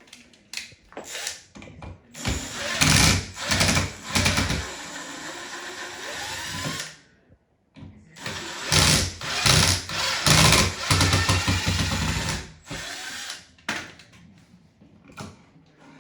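Electric drill-driver running in two spells of about five seconds each, its motor whine shifting in pitch, as it backs out screws to take the old wall outlet out.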